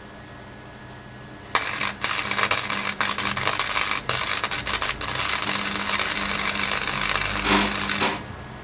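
Royalcraft Line MIG 150 welder running gasless flux-core wire, its arc crackling steadily as a weld bead is laid. It starts about a second and a half in, breaks briefly three times, and cuts off suddenly just before the end.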